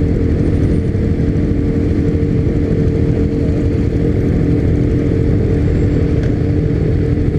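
Honda CB300 motorcycle engine running steadily under way. Its pitch holds level with no revving up or down.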